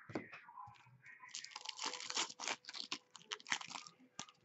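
Foil wrapper of a 2015-16 Trilogy hockey card pack being torn open and crinkled: a soft knock at the start, then a dense crackling from about a second in until near the end.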